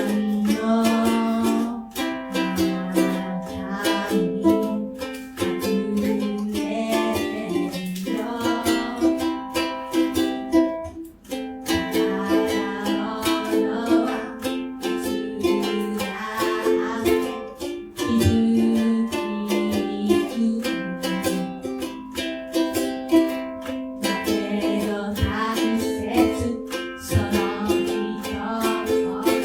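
Ukulele strummed in a steady rhythm, playing chords through a song.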